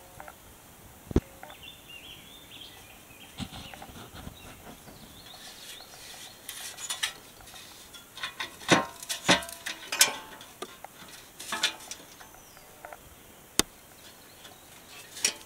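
Scattered metallic clinks and knocks of metal parts and tools being handled, with one sharp knock about a second in and a busy run of clatter in the middle.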